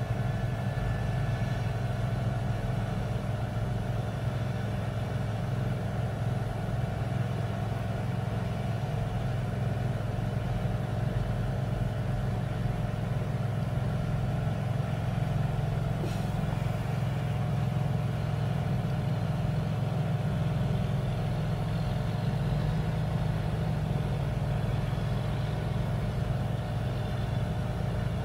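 Heavy diesel truck engines running steadily, a low continuous drone that holds without revving.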